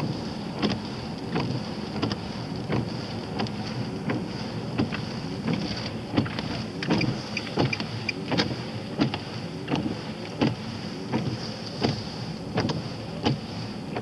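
Car driving in the rain, heard from inside the cabin: steady road and engine noise with a high steady hum. Over it, the windscreen wipers sweep evenly about every 0.7 s.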